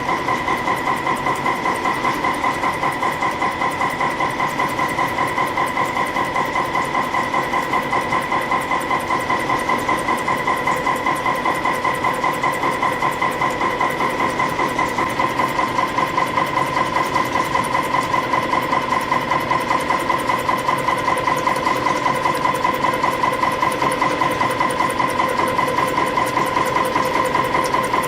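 CNC spring coiling machine forming short compression springs from 0.2 mm wire, running at production speed with a rapid, even rhythm of strokes over a steady high whine.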